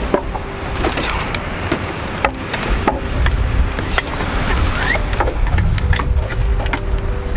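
Wooden clicks and knocks as wooden folding camp tables and a wooden crate are unpacked and unfolded, over a steady rumble of wind and surf. A steady low hum joins about six seconds in.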